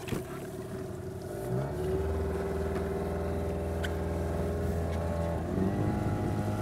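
Small Yamaha outboard motor on an inflatable dinghy running under way, its pitch stepping up about a second and a half in and again near the end as the throttle is opened.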